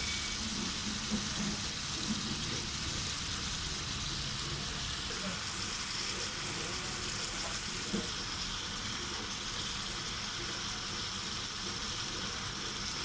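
Chicken curry sizzling in a cooking pot: a steady frying hiss.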